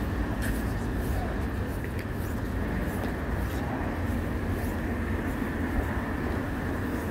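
Steady low rumble of city street traffic passing close by.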